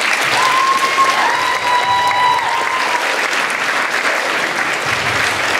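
An audience applauding in a hall, steady clapping after a speech ends. A held high tone rises over the clapping for a couple of seconds near the start.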